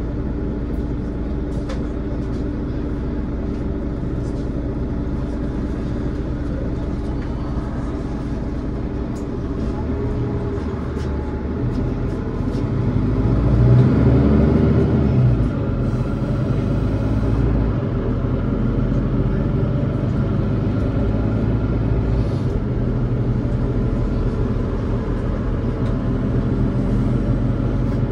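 Mercedes-Benz Citaro O530 city bus on the move, heard from on board: the diesel engine runs steadily over low road rumble. About halfway through the engine note swells, climbing and then falling in pitch as the bus pulls away or speeds up.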